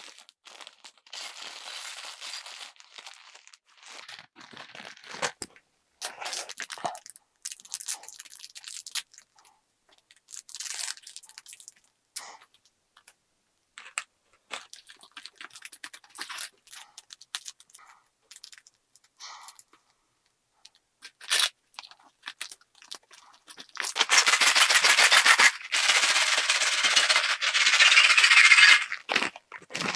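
Plastic snack packet of crushed ramen snack being handled and torn open, with intermittent crinkling and tearing of the bag and a small foil seasoning sachet. Near the end comes the loudest part: the bag is shaken hard for several seconds in two spells, a dense rattling rustle of dry noodle bits inside.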